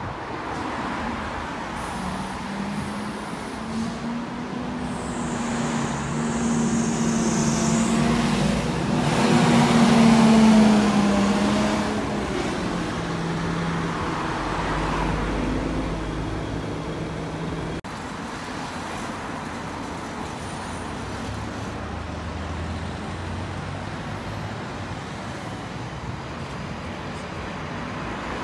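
Double-decker buses pulling out of a depot and driving past: a steady engine hum that grows louder as one bus passes close about ten seconds in and then fades, with road traffic noise, and another bus's engine running at a lower hum later on.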